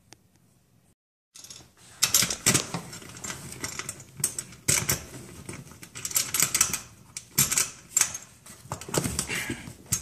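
Rapid, irregular clicking and rattling from about two seconds in, as a heavy four-wire range cord is worked up through a metal strain-relief clamp on an electric range's sheet-metal bracket, with the cord and fingers knocking against the metal close to the microphone.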